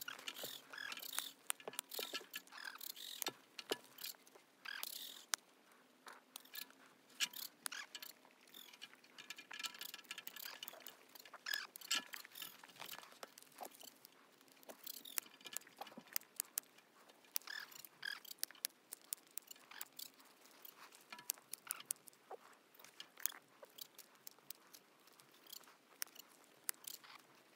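Hoof trimming shears snipping a goat's overgrown hoof wall: a long run of irregular, sharp snips and clicks.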